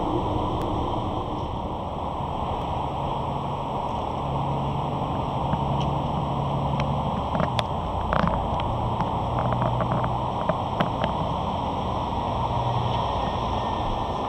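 Steady low rumble of wind and truck engines running somewhere in the yard, with a faint hum that comes and goes. A scatter of light clicks and ticks falls in the middle.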